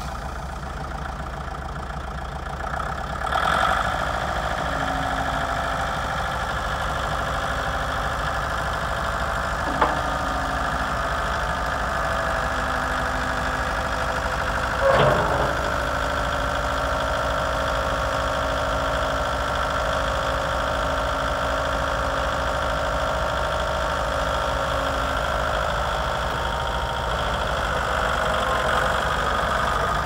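Kubota L3350 tractor's diesel engine running steadily, picking up a little about three seconds in as the tractor is driven and its front loader raised. A sharp click comes near ten seconds and a brief clunk around fifteen.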